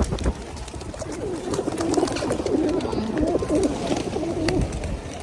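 Feral pigeons cooing, several low, wavering coos overlapping from about a second in until near the end. A sharp knock right at the start.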